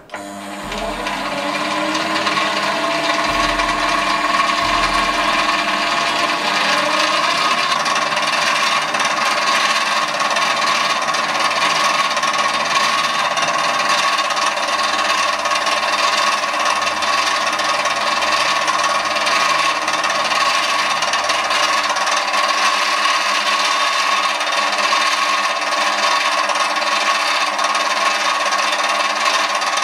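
A mini lathe running, the Foreman TB1835. Its pitch rises over the first several seconds as it spins up, then it holds a steady whirring with a hissing noise over it.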